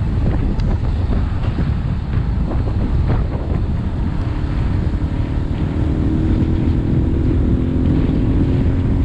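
Wind rushing over the microphone of a GoPro on a moving motorbike, a steady low rumble. From about halfway through, the motorbike's engine note comes through under the wind, rising slightly in pitch.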